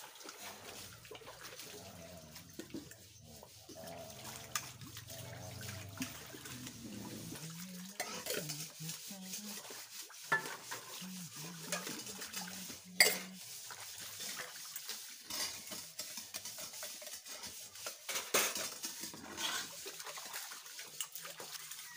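Stainless steel utensils clinking and clanking against each other as they are washed and rinsed by hand in a tub of water, with some sloshing water. The sharpest clank comes about 13 seconds in.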